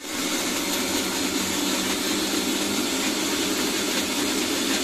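Electric kitchen mixer-grinder switched on and running at a steady speed, its stainless steel jar grinding tomatoes, onions and garlic into a paste.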